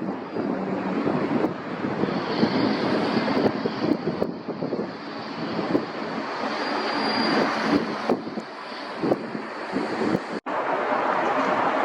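Jet airliner engines running: a loud, rough rumble with a faint high whine over it. Near the end the sound drops out for an instant and comes back as a steadier rush.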